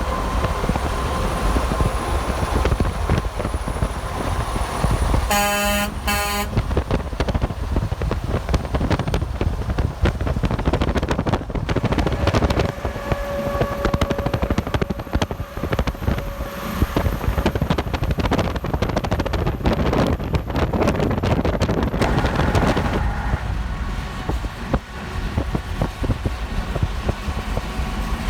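Steady roar of passing highway traffic. About five seconds in, a truck's air horn blasts twice, a longer blast and then a short one.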